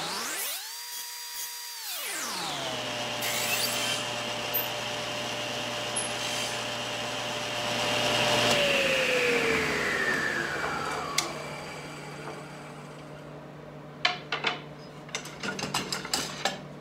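Table saw running with a steady whine, then switched off about eight seconds in, its blade winding down with the whine falling in pitch. Near the end, light knocks of wooden pieces being set down on the saw's cast-iron table.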